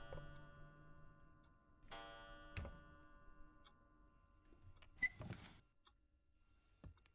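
Two ringing chime-like strikes about two seconds apart, each fading slowly. About five seconds in comes a sharp click with a brief rustle, and near the end a few small clicks, as a wooden cabinet under a television is opened and searched.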